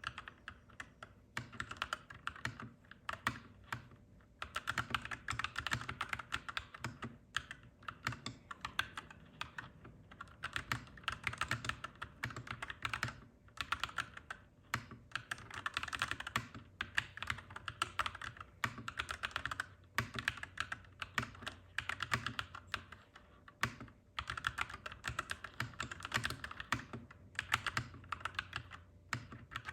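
Clacky mechanical keyboard being typed on in fast, continuous runs of keystrokes, broken by short pauses every few seconds.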